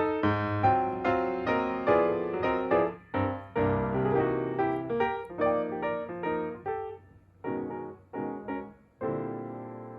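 Background piano music: a melody of struck notes that slows near the end and closes on a held note.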